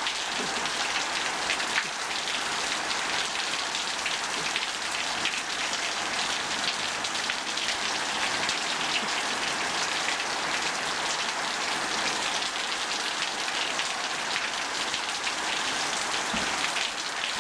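Heavy rainstorm: a downpour falling steadily, a dense hiss of drops.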